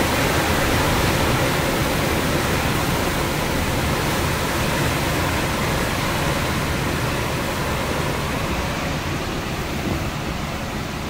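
Hurricane wind and driving rain: a loud, steady rushing noise that eases slightly near the end.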